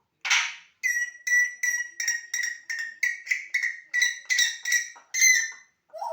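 African grey parrot giving a rapid run of short, clipped whistled notes, about three or four a second, kept up for nearly five seconds, after one short harsh noise near the start.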